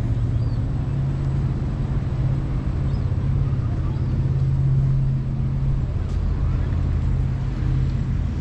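A steady, low engine hum, unchanging in pitch, over outdoor background noise and faint voices.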